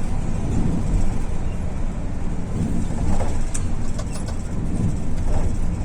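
Volvo bus's diesel engine running with a steady low rumble, and a single sharp click about three and a half seconds in.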